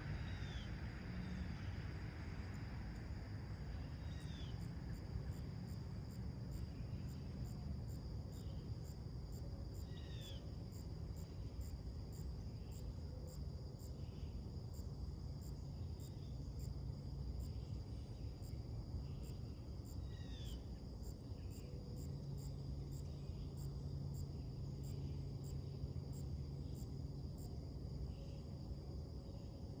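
Late-summer morning insects and birds: a steady high insect drone and a fast, even ticking run under a bird giving a short slurred call every few seconds. A low background rumble lies beneath.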